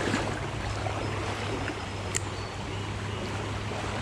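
Shallow stream running over a rocky bed, a steady rushing of water, with one sharp click about two seconds in.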